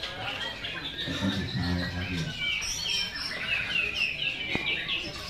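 White-rumped shama (murai batu) singing: a quick run of short, repeated high chirps about halfway through, among other bird calls.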